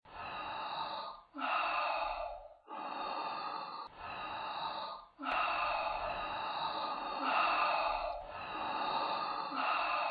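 Heavy, hissing breathing through a mask, drawn in and pushed out in a slow steady rhythm of one breath about every second and a half, in the manner of Darth Vader's respirator breathing.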